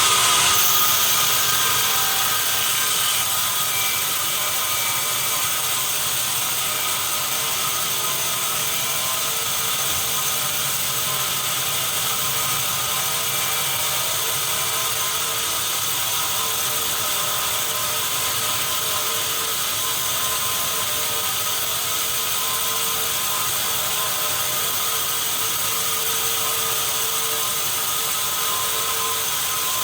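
Sawmill machinery running steadily: a dense, even mechanical noise with a few high whining tones held throughout. It is a little louder in the first couple of seconds, then settles.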